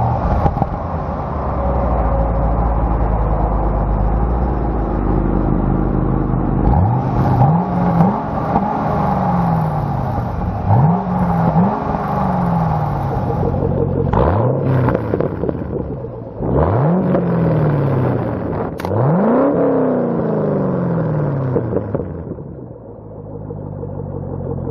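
2010 Chevrolet Camaro's 6.2-litre LS3 V8 with a Borla ATAK cat-back exhaust, heard at the tailpipes. It idles with a deep rumble, then from about seven seconds in it is blipped about seven times, each rev rising quickly and dropping back to idle.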